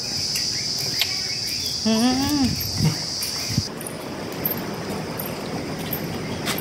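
Insects, crickets or cicadas, chirring in one steady high-pitched drone that cuts off abruptly about three and a half seconds in. A person makes a brief voice sound, rising then falling in pitch, about two seconds in. After that there is only an even outdoor hiss.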